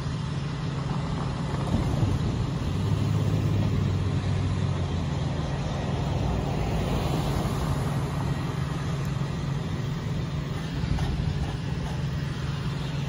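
Road traffic at a railroad grade crossing: cars and a pickup driving over the crossing, with a steady low engine hum underneath. The road noise swells about midway through.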